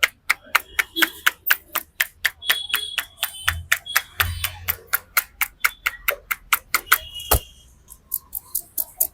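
Rapid, rhythmic slaps of a barber's hands in a percussive massage, about four sharp strokes a second. A heavier slap comes near the end, after which the strokes stop.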